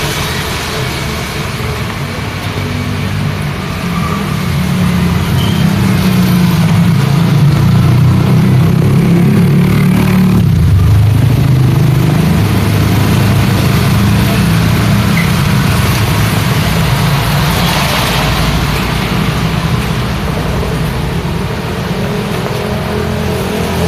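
Road traffic in the rain: engines of passing vehicles rumbling and accelerating over a steady hiss of rain and tyres on the wet road.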